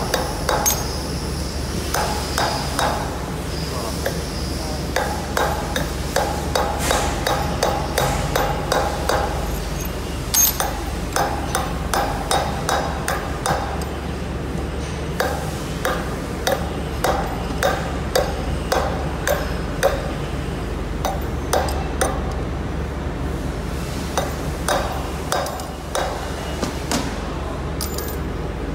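Runs of sharp metal-on-metal taps and knocks on the steel plates of an injection mould being disassembled, some ringing briefly. A steady low hum lies beneath.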